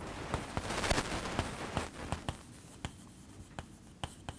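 Chalk writing on a chalkboard: a quick run of scratching, tapping strokes for the first two seconds or so, then only a few scattered taps.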